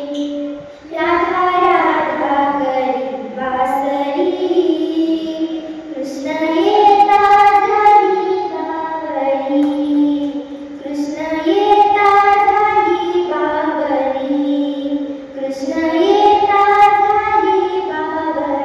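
A young girl singing solo in long held phrases, her pitch sliding and wavering between notes, with short breaks between phrases.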